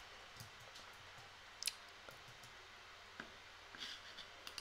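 A handful of faint, irregular clicks from a computer mouse as windows are switched, over a low room hiss.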